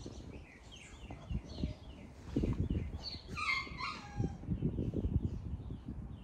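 Small birds chirping over and over in short, high notes, with one louder call about three seconds in that falls in pitch. Low rustling and bumps run underneath.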